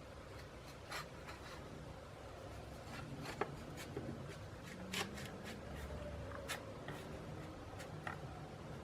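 Faint scattered clicks and taps of light hand work over a low steady hum, with a few sharper clicks about a second, three and a half, five and six and a half seconds in.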